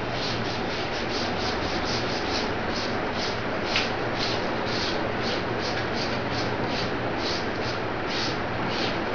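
A chalkboard eraser (board duster) wiping across a chalkboard in quick back-and-forth strokes, a steady run of short swishes about two to three a second.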